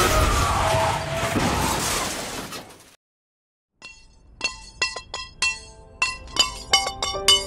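Car collision: a police siren falls in pitch under a loud crash of crumpling metal and shattering glass that fades out over about three seconds. After a second of silence, sharp ringing, bell-like plinks start up and come faster near the end.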